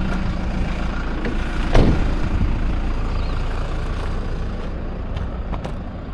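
Campervan's engine running with a steady low rumble heard from inside the cab, with one short knock about two seconds in.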